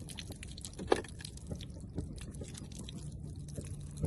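Thin plastic gallon water jug being handled, crinkling and clicking, with one sharp click of the plastic about a second in.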